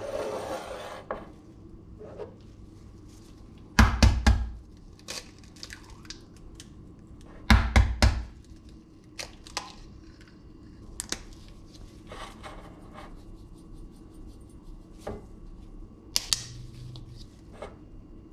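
Two eggs cracked open, each a quick cluster of sharp taps with a low thud, about four and about seven and a half seconds in, with lighter clicks of shell and bowl handling between and another short knocking near the end.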